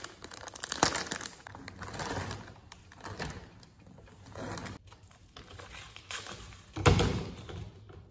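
Thin plastic bag of lavash flatbread crinkling and rustling as it is opened and handled, with a louder thump about seven seconds in.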